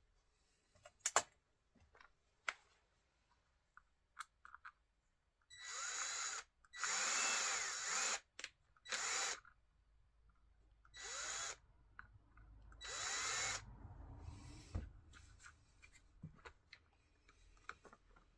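A power drill run in five short bursts of about half a second to a second and a half, its motor speeding up and slowing with each trigger pull, as when drilling small holes. Light clicks and knocks of handling come in between.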